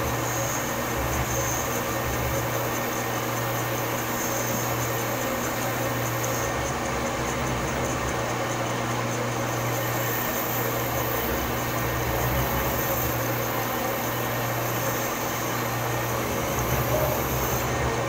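Metal lathe running steadily, spinning a large round workpiece: a constant machine hum with a faint high whine.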